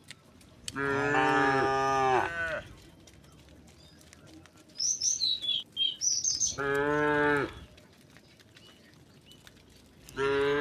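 Cows mooing: a long moo about a second in, a shorter one past the middle, and a third beginning near the end.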